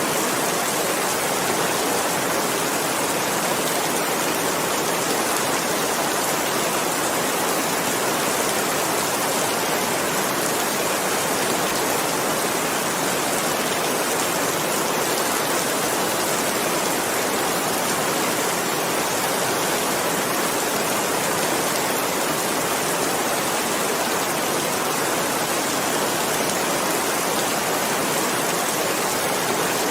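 Steady heavy rain, an even hiss of falling rain with no single drops standing out and no change in level.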